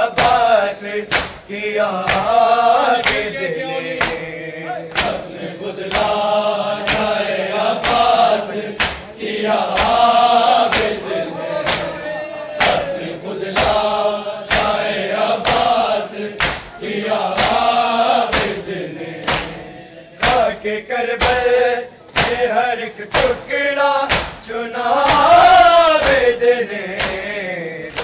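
Group of men chanting a Shia noha (lament) in unison in long rising and falling phrases, over the steady beat of a crowd of mourners striking their bare chests with their hands (matam).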